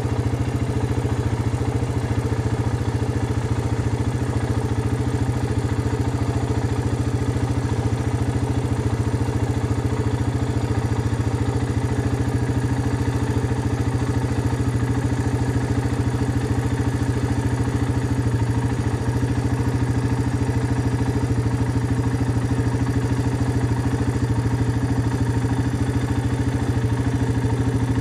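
Four-wheeler engine running at a steady, unchanging pitch.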